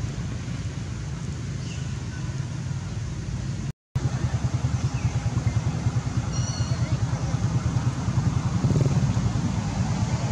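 Low rumble of a running engine. It cuts out briefly a few seconds in, then returns with a fast, even pulsing. A few faint high squeaks come in the middle.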